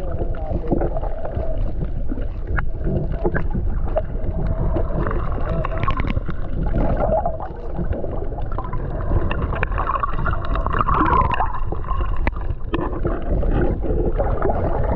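Muffled underwater sound of water gurgling and moving around a camera held below the surface, a low rumbling wash with a few faint clicks.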